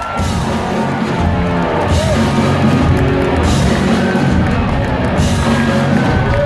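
Live hard rock band playing loud, with drums, bass and electric guitars, heard from within the crowd.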